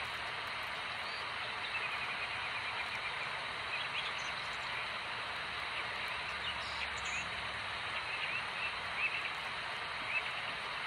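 Small birds chirping in short, repeated calls, more often in the second half, over a steady hiss of outdoor background noise.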